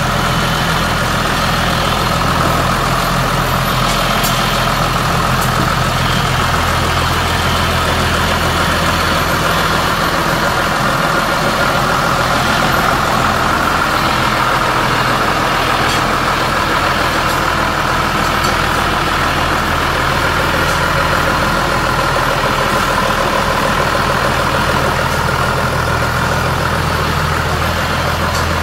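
John Deere 3350 tractor's diesel engine running steadily at a constant speed, with no revving.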